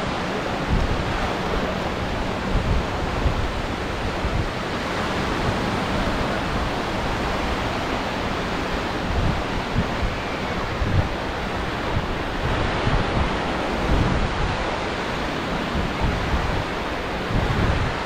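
Surf washing onto the beach, mixed with wind buffeting the microphone in uneven gusts.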